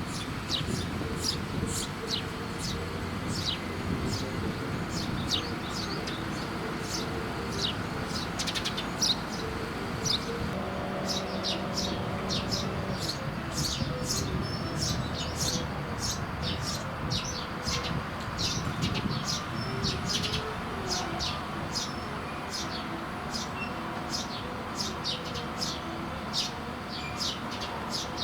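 Eurasian tree sparrows chirping over and over in quick short notes, dense all through, over a steady low background rumble.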